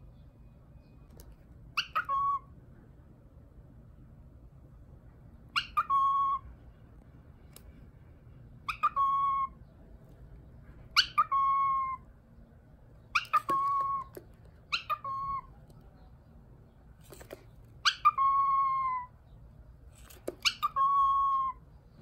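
Cockatiel calling about eight times, a couple of seconds apart: each call is a loud whistle that drops sharply in pitch and then holds a steady note for about half a second.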